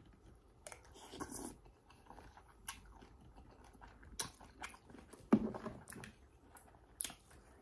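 Close-up mouth sounds of someone eating pho: chewing with scattered wet smacks and clicks, and one louder mouth sound a little past five seconds in.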